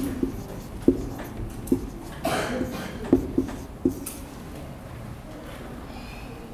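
Marker pen writing on a whiteboard: a handful of sharp taps of the tip against the board in the first four seconds, with a brief scratchy stroke about two seconds in, then quieter.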